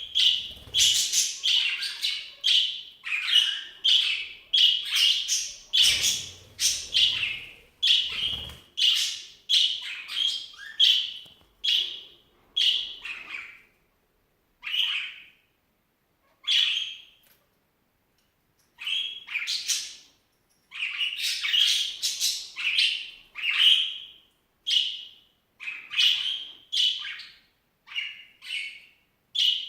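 A pet squeaking over and over as it feeds: short, high squeaks about two a second, thinning out to a few spaced calls in the middle before picking up again.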